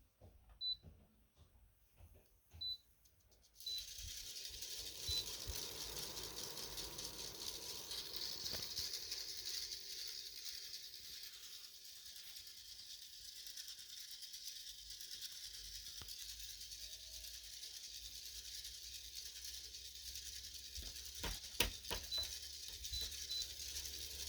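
Bionaire 360XL air purifier fan starting up a few seconds in and running with a steady fast rattle: a new noise that the owner takes for a bad motor bearing, since nothing obstructs or rubs the fan. A few short high beeps and clicks come before it starts and again near the end.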